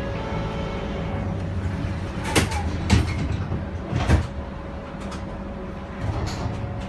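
Bombardier Flexity streetcar heard from inside, a low rumble with a faint steady hum, broken by three sharp knocks about two and a half, three and four seconds in.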